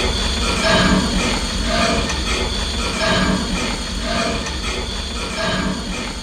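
Star Wars AT-AT walker sound effect: a rhythmic mechanical pulse repeating about once a second over a steady low rumble.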